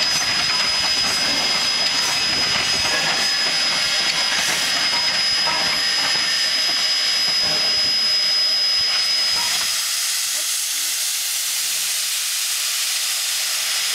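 Geared Climax steam locomotive rolling slowly with a low rumble and scattered clanks. About ten seconds in the rumble stops as the engine halts, and a steady hiss of venting steam takes over.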